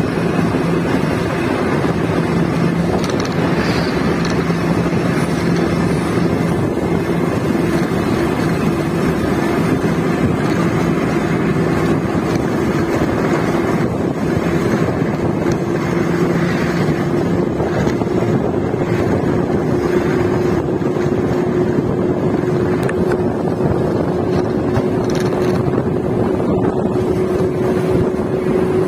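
Bus engine running steadily at cruising speed with road and wind rush coming in through the open window, a constant engine hum over the noise.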